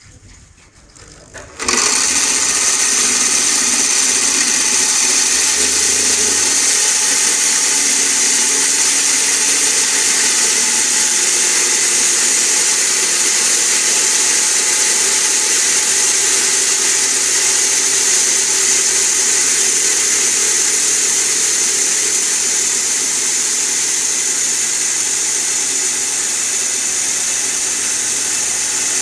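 Homemade square-hole drilling machine starting suddenly about two seconds in and then running steadily with a high whine as its bit works into a clamped wooden plank.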